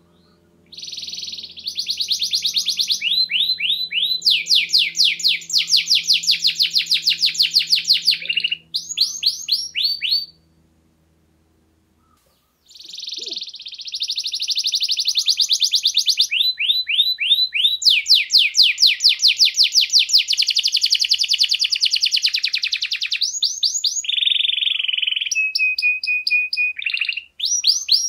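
Domestic canary singing long, fast rolling trills and runs of rapidly repeated notes, in two bouts with a pause of about two seconds between them. Near the end it holds a single steady whistled note for about a second.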